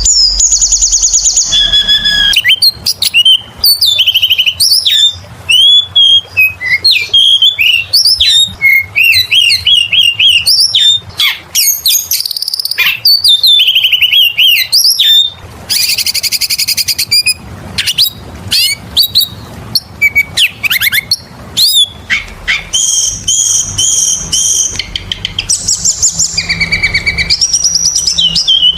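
Oriental magpie-robin (kacer) singing a loud, varied song: quick whistled notes, slurred sweeps and trills, broken by a few harsh, buzzy rasping phrases.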